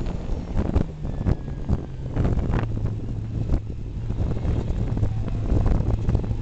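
The turbocharged four-cylinder engine of a 1998 Eagle Talon TSi AWD running at a steady, fairly low pitch as the car is driven through a cone course, with wind buffeting the microphone and several brief knocks.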